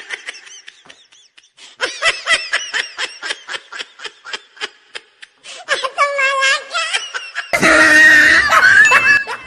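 Laughter in quick short bursts, a few a second, moving into a longer held laugh, then a louder, noisier outburst near the end.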